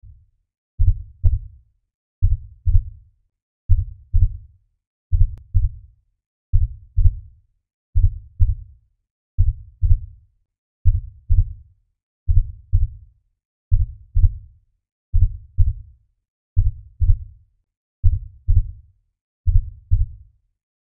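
Slow heartbeat: a low double thump, lub-dub, repeating evenly about every second and a half with silence between beats.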